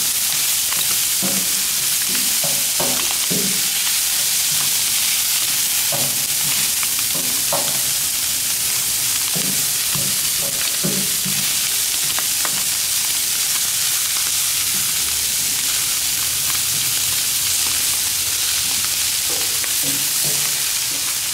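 Broccoli, onion and sausages sizzling on a hot steel flat-top griddle, a steady hiss, with scattered clacks and scrapes of tongs moving the food across the plate, most often in the first half and again near the end.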